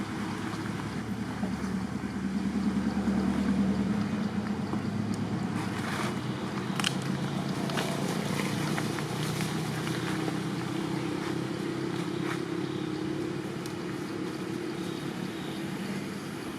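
An engine running steadily, its pitch shifting slightly now and then, with a few light clicks about six to seven seconds in.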